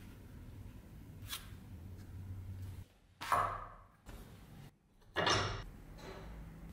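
A light click, then two louder metallic knocks about two seconds apart, each ringing off briefly, as the rapier's rusty steel bell guard is handled and clamped in a bench vise.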